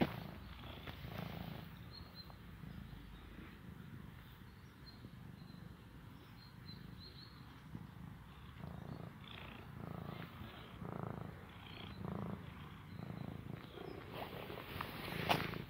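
Tabby cat purring close to the microphone, a low rumble that swells and fades about once a second as it breathes, while a hand strokes it. Rustles from the handling come through, with a sharp knock near the end.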